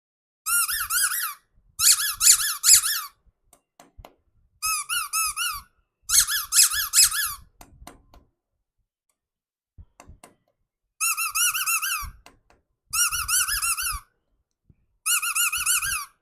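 Squeaky toy squeezed over and over, giving seven bursts of high, wavering squeaks about a second long with short gaps between, and faint handling knocks in the pauses.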